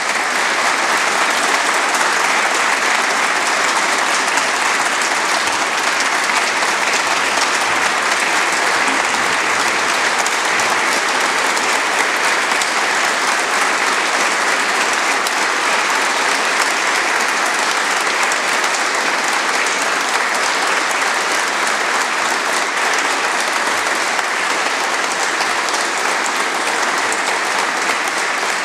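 Large audience applauding steadily, a standing ovation.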